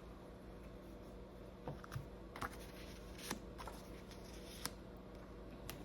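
A few faint, scattered light clicks and taps, about seven in all, over a low steady hum: small handling sounds of an object being touched or moved.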